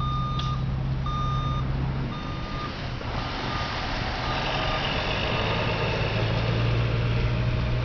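A truck's reversing alarm beeping steadily about once a second over a running truck engine. The beeps fade out about four seconds in, and the semi tractor's engine and a wider rumble grow louder as the rig pulls away with the boat trailer.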